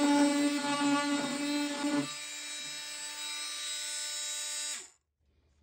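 Oscillating multi-tool with a carbide grout-removal blade buzzing as it scrapes paint off wood. About two seconds in it drops to a quieter, lighter buzz, then stops suddenly near the end.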